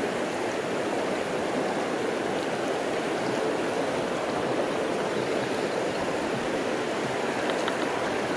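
Steady rushing of a shallow, rocky mountain creek flowing over stones and riffles.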